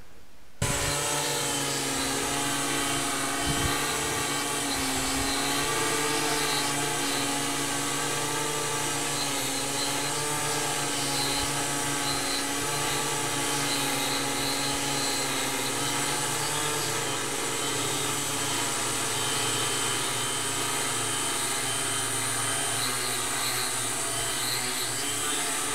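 Skywalker X8 VTOL quadplane's electric quad lift motors spinning 15-inch propellers in a steady hover: a steady multi-tone drone whose pitch wavers slightly as the motors hold the aircraft in position. It starts about half a second in.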